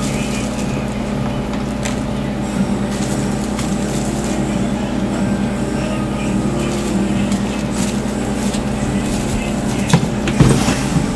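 A steady low hum with a few sharp knocks close together near the end.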